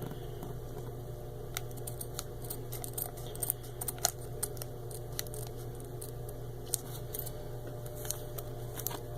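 Scattered small crackles and clicks of a Pokémon booster pack's foil wrapper being handled and opened, over a steady low hum.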